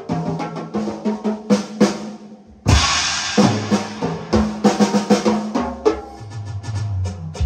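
Music with a drum kit: snare and bass drum hits over pitched notes, with a brief drop about two and a half seconds in followed by a loud crash.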